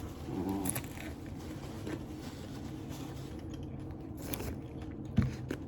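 Quiet eating sounds: a few scattered crunches and clicks from hard taco shells being bitten and handled, with a sharper knock about five seconds in.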